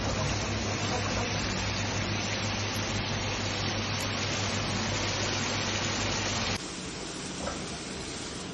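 Steady hiss of a pan of tomato sauce cooking on a gas burner, over a low steady hum, dropping abruptly to a quieter hiss about two-thirds of the way through.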